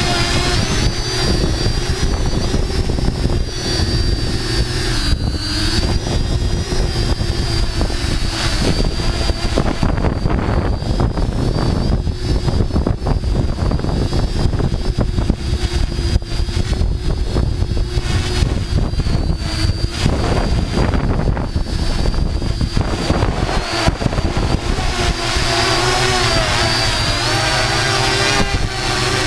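Multirotor drone's electric motors and propellers whirring, heard from the camera on board: a steady high whine that wavers a little in pitch as the throttle changes, over heavy low buffeting from the rotor wash.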